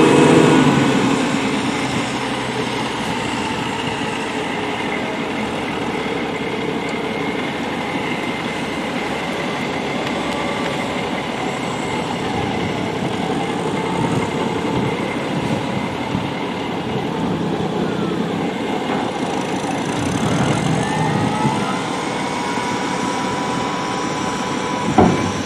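Steady engine and machinery noise of a semi truck unloading chopped corn silage from its raised dump trailer, with a tractor running on the silage pile. A whine rises about 20 seconds in and holds, and a sharp knock comes just before the end.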